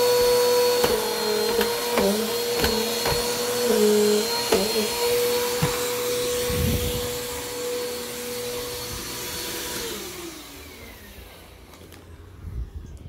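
Bissell PowerForce Compact Turbo (model 2690) upright vacuum running on carpet, a steady motor whine that dips briefly a few times, with a few clicks. About ten seconds in, the motor shuts off and winds down with a falling pitch; the power switch has just broken.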